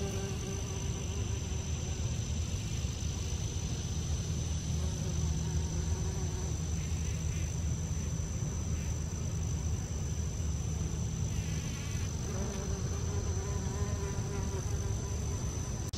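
Bumblebee buzzing in flight, coming close near the start and again near the end, over a steady high-pitched drone of other insects.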